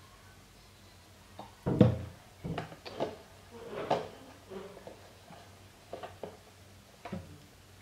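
Knocks and handling sounds at a bathroom sink: the loudest, about two seconds in, is the small plastic alcohol bottle being set down on the sink. Several lighter knocks follow as the wet cloth is handled.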